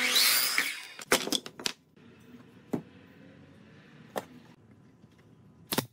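A miter saw cuts through a thin wooden moulding strip in a loud burst lasting about a second, followed by a quick cluster of light wooden clicks. Then single wooden knocks as moulding pieces are set down on a wooden block, the loudest a sharp double knock near the end.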